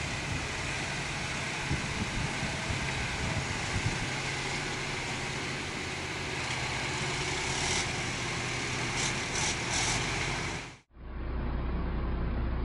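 Fast river water rushing over rocks, with heavy truck engines running steadily underneath. Near the end the sound cuts abruptly to a steady low engine drone heard from inside a truck cab.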